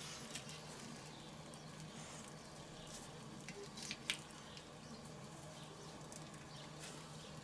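Faint handling sounds of marinated pork chunks being pushed onto wooden skewers over a foil bowl: soft squelches and a few light clicks, the sharpest about four seconds in, over a faint steady low hum.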